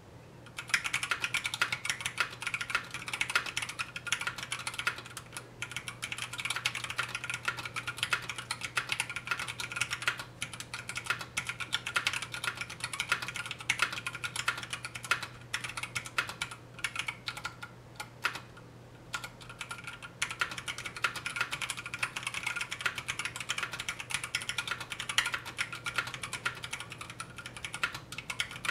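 Fast typing on a mechanical keyboard with 67g Zealio tactile switches and Cherry-profile POM keycaps: a dense stream of key clacks. The typing starts just under a second in and pauses briefly about two-thirds of the way through before resuming.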